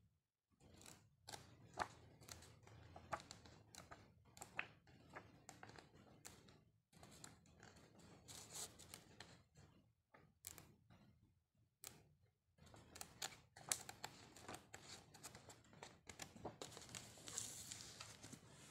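Faint rustling and flapping of glossy coated-paper pages as a large hardbound art album is leafed through by hand, in a series of short crisp rustles with brief pauses between turns, and a longer sliding rustle near the end.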